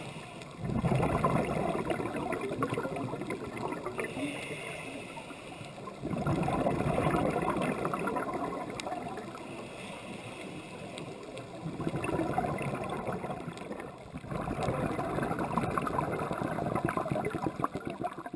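Scuba regulator exhaust bubbles, heard close on an underwater camera: four crackling, gurgling bursts of bubbles several seconds long, one with each breath out, with a brief hiss between some of them.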